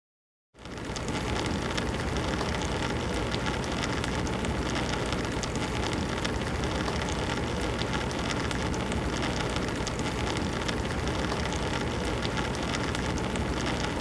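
Water spraying inside a running dishwasher, a steady rain-like hiss that starts about half a second in. It is the water spray sound of a spray arm blocked by an item in the rack.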